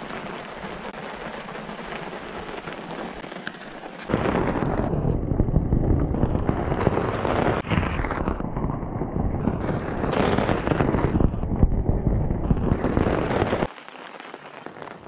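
Steady rain falling. About four seconds in, a much louder, deeper rushing clatter of heavy rain drumming on the canvas awning overhead takes over, then cuts off abruptly near the end.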